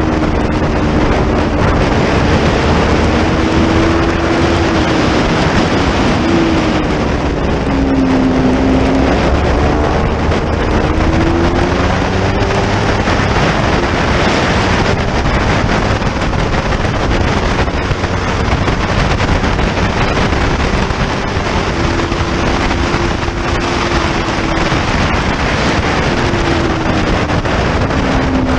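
Motorcycle engine at speed, its note rising and falling as it accelerates and shifts, under heavy wind noise on the microphone.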